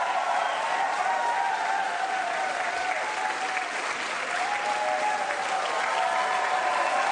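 Large crowd applauding steadily, with voices calling out over the clapping.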